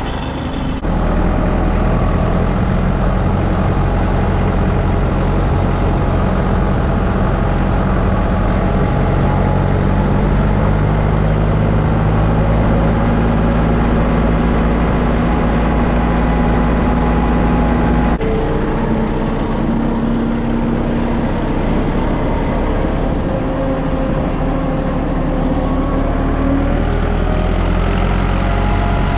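Tractor engine running steadily, getting louder about a second in, its note shifting about eighteen seconds in.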